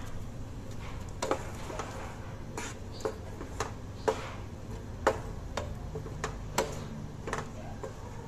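Wooden spatula stirring thick sauce in a non-stick frying pan, knocking against the pan about ten times at an irregular pace, over a steady low hum.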